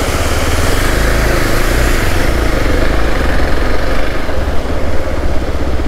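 Motorcycle engine running steadily under a constant hiss.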